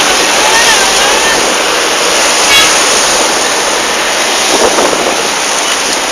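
Loud steady rushing noise of wind on the microphone mixed with road traffic going by.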